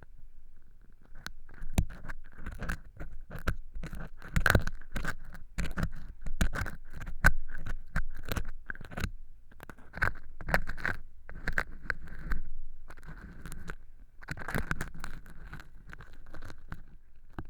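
An ear pick scraping and crackling through dry fake earwax made of cork chips inside an ear model's transparent ear canal. It is a close, strong crunchy scratching in quick irregular clicks and scrapes, with brief lulls between strokes.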